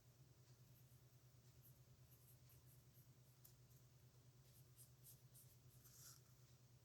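Faint scratching of a dip pen's metal nib on paper in short strokes, over a steady low hum, with a slightly louder stroke about six seconds in.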